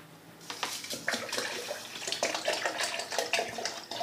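Cold water being poured into a plastic blender jar of yogurt, splashing steadily from about half a second in.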